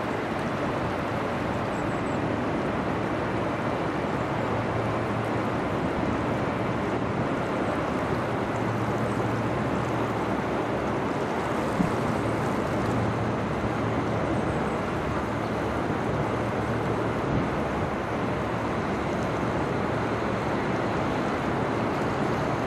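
A Great Lakes bulk carrier passing close, its hull pushing a steady rush of water along its side over a low hum from the ship, with wind on the microphone. One brief knock about halfway through.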